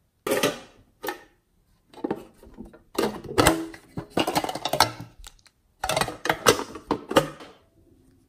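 Small metal tin box handled and opened by hand: several bursts of clattering, clicking and knocking from the tin and its lid.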